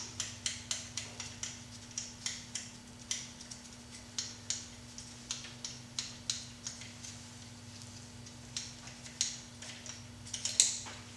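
Hand ratchet clicking in short uneven runs while bolts are backed out of an Audi B5 S4 engine's crankshaft pulley (vibration damper), with the loudest cluster of clicks near the end.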